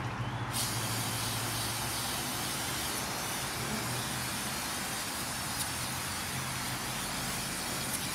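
Aerosol brake cleaner sprayed over a drum brake assembly to wash off spilled brake fluid: one long steady hiss starting about half a second in.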